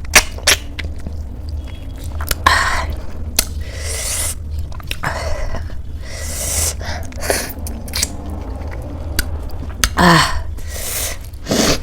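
Close-miked chewing of samosa and ghugni: wet mouth sounds with many short sharp clicks. A brief falling voiced sound comes about ten seconds in.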